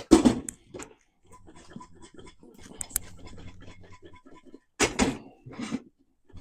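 A person chewing popcorn up close: a run of small crunching crackles, with a short loud noise at the start and another about five seconds in.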